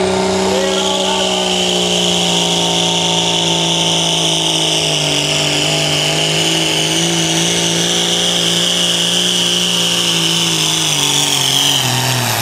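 John Deere light pro stock pulling tractor's turbocharged diesel engine at full power under the sled's load, running steadily with a high whine above it. Near the end the engine pitch falls quickly as the tractor slows to the end of its pull.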